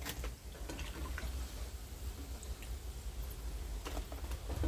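Frying oil crackling faintly, with scattered sharp clicks, over a steady low rumble.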